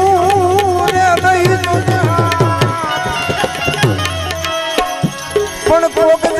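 Devotional bhajan accompaniment: tabla playing, its bass strokes sliding down in pitch, under a melody that opens on a wavering held note and picks up again in short rhythmic notes near the end.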